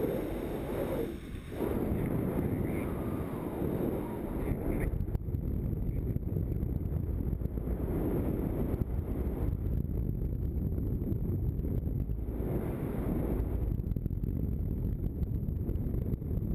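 Wind rushing over the microphone of a camera on a paraglider pilot in flight: a steady low rumble of airflow that swells and eases every few seconds.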